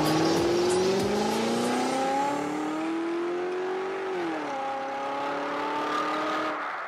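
Car engine accelerating, its pitch rising steadily for about four seconds, then dropping and holding lower before fading out near the end.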